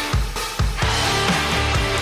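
Background rock music with a steady drum beat and guitar.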